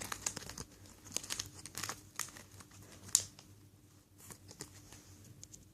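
Crinkling and rustling of packaging being handled, a series of light crackles with one sharper crackle about three seconds in.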